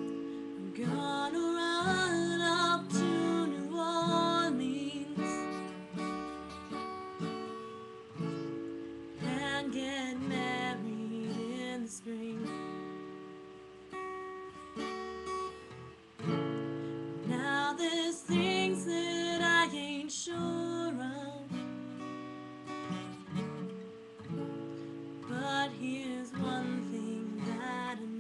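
Strummed acoustic guitar playing a song's accompaniment, with a voice singing phrases over it, pausing between lines.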